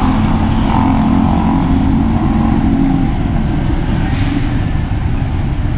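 Motor vehicle engine running amid road noise, its low engine note fading about three seconds in, with a short hiss about four seconds in.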